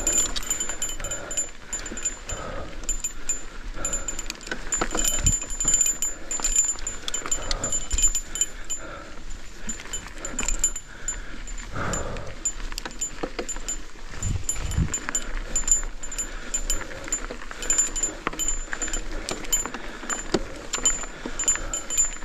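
Cannondale Scalpel full-suspension mountain bike descending rough trail: a continuous clatter and rattle of the bike over roots and rocks, mixed with tyre noise on dirt. There are a couple of heavier knocks about two-thirds of the way through.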